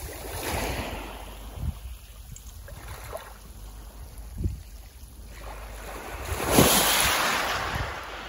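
Small waves lapping and washing up onto a shelly gravel beach, swelling and fading several times, the biggest wash about six and a half seconds in, with wind rumbling on the microphone.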